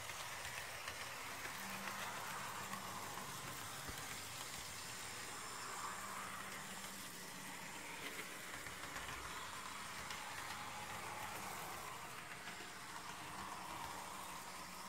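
HO-scale Alco RS-1 model diesel locomotive running on the track, a DC model with no sound decoder: a faint whir from its small electric motor and wheels rolling on the rails, the pitch drifting slowly up and down.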